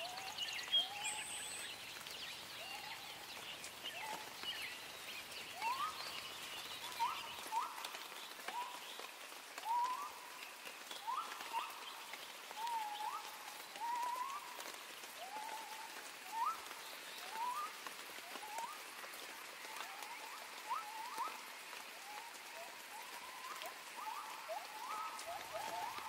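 Nature ambience: an animal giving short upward-hooked calls over and over, roughly one a second, over fainter higher chirping and a steady hiss.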